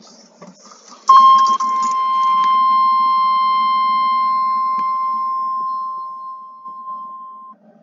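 A loud, steady electronic warning tone starts sharply about a second in, holds for about six seconds and then fades out. A few sharp clicks sound early in the tone.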